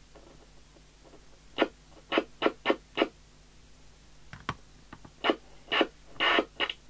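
Short bursts of noise from a Falcon FCB1281 CB radio cutting in and out as the factory microphone's switch is worked: four quick bursts, a pause, then four more, one of them longer. Receive through the mic switch is intermittent, and cleaning it has not cured it.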